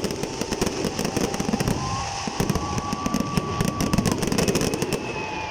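Fireworks display going off: a dense, continuous run of crackling pops and low booms, with a thin steady whistle through the middle.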